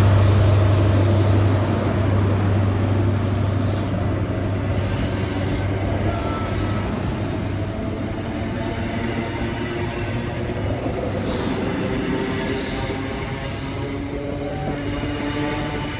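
An InterCity 125 (HST) passing close alongside: the power car's diesel engine hum fades over the first couple of seconds, then the coaches roll steadily by with wheel noise on the rails. Several short high-pitched hissing squeals come and go over it.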